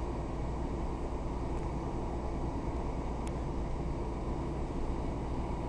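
Steady low rumble of a diesel passenger train running along the line, heard from inside the carriage, with a faint click about three seconds in.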